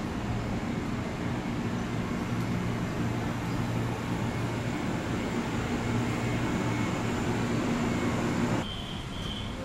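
Steady low hum of an electric train standing at the platform. Near the end the sound drops to a quieter background with two short high beeps.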